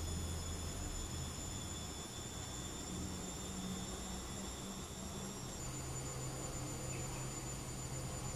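Washing machine running in the background: a steady motor hum with a high whine, both shifting in pitch about five and a half seconds in.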